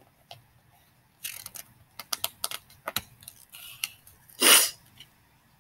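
Pages of a picture book being turned by hand: soft paper rustling and light handling clicks, then a louder short hiss about four and a half seconds in.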